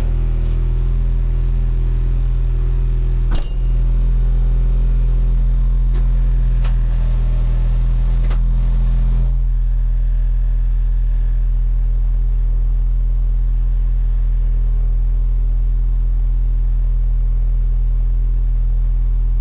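Race car's engine idling steadily, heard from inside its stripped, roll-caged cabin, with a few sharp clicks in the first half and a hiss that stops about nine seconds in.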